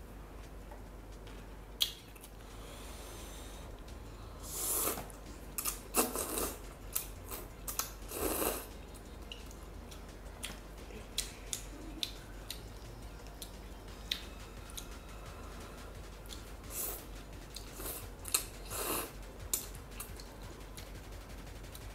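Eating sounds: chewing, then slurping spicy glass noodles, several short slurps with small clicks of chopsticks against a paper noodle cup between them.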